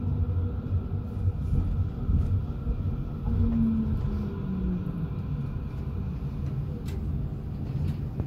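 Tram running, heard from inside the car: a steady low rumble with a faint electric motor whine that falls in pitch about three and a half seconds in.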